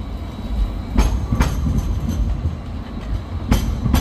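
Sydney train running on the rails with a steady low rumble. Its wheels clack over rail joints in two pairs of sharp clicks, about a second in and again near the end.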